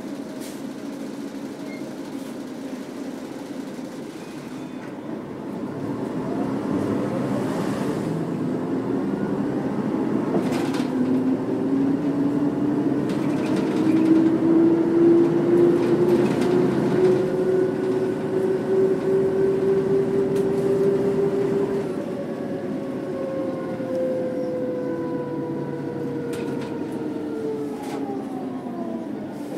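Mercedes-Benz O405 bus's OM447H six-cylinder diesel pulling away through its ZF 4HP500 automatic gearbox. The engine note rises from about six seconds in and holds high. A little past the two-thirds mark it drops back, and the pitch falls slowly as the bus eases off.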